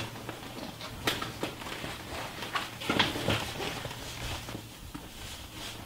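Handling noise of a padded stroller seat and its nylon harness strap as the strap is pushed through a hole in the fabric, with a few soft knocks and scrapes about one and three seconds in.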